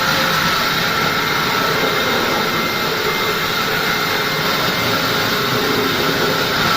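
Large sawmill saw running steadily, a loud even machine noise with a steady whine that holds the same level throughout.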